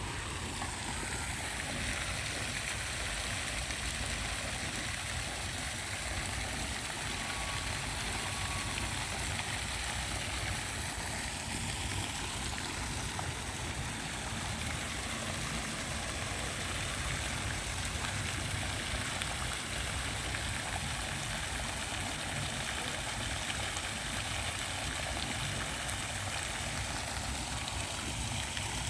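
Steadily flowing stream water, an even rushing with a low rumble underneath.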